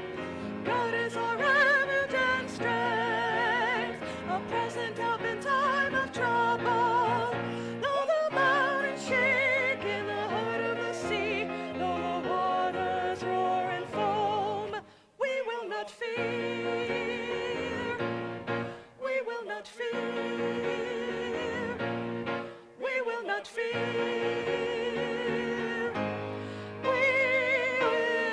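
Church choir singing an anthem, long held notes sung with wide vibrato, the singing pausing briefly three times.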